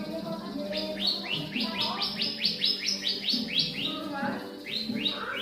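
Bar-winged prinia (ciblek) singing: a fast trill of high, downward-sweeping notes, about five a second, starting about a second in, with a shorter burst of a few notes near the end.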